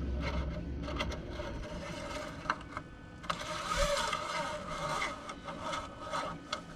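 Oil dipstick being handled in its metal tube on a diesel pickup engine: scattered clicks and scraping, with a longer rasping stretch about halfway through as it slides out.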